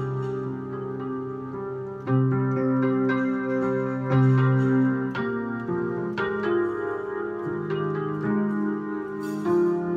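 Digital piano played solo, improvised: sustained chords over held bass notes, changing every second or two.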